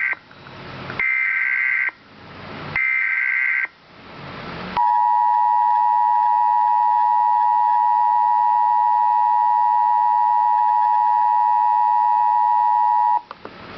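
Emergency Alert System tones: three bursts of SAME header data tones, about a second each, separated by rising hiss, then the two-tone EAS attention signal (853 and 960 Hz together) held steady for about eight seconds before cutting off. The header encodes the alert and the attention signal announces that an emergency message follows.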